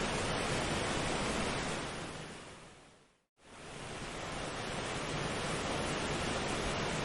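Steady, even rushing noise, which fades out to a moment of silence a little over three seconds in and fades straight back in.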